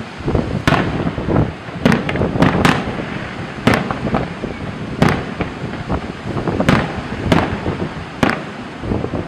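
Fireworks display: about ten sharp bangs of bursting shells at irregular intervals, over a steady background rush.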